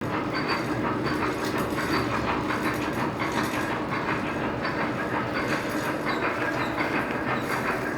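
Metal lathe running steadily: a continuous mechanical clatter with a fast, even rattle over a faint steady hum.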